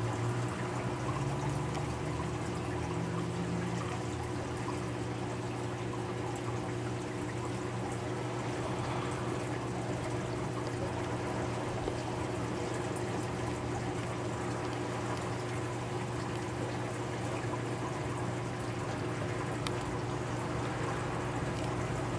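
Reef aquarium's water circulation running: a steady trickle and pour of water, with a constant low hum underneath.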